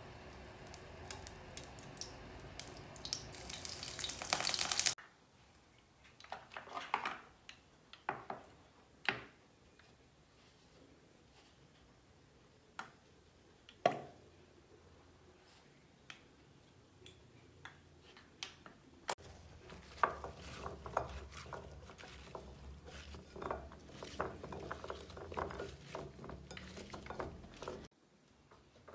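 Cooking oil pouring from a dispenser bottle into a nonstick frying pan, a steady stream that grows louder and cuts off about five seconds in. Then scattered light clicks and clinks of hands handling salted potato wedges in a ceramic bowl, busier near the end, over a faint low hum.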